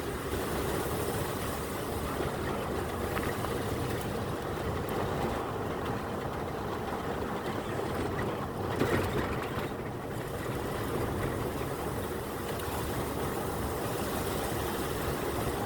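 A car driving along: steady engine and road noise, with a brief louder swell about nine seconds in.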